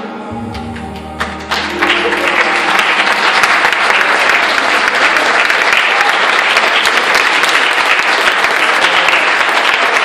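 A congregation applauding: a few scattered claps about a second in swell into loud, steady applause, while the last held notes of the music fade out.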